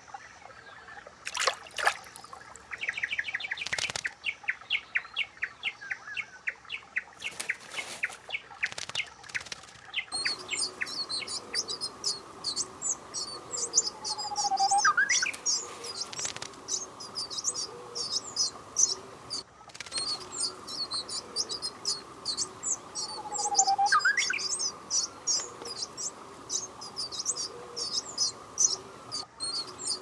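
Black paradise flycatcher nestlings begging for food with rapid, high chirps, starting about ten seconds in, with a louder rising call twice among them. Before that, a series of sharp separate bird calls and a brief quick trill.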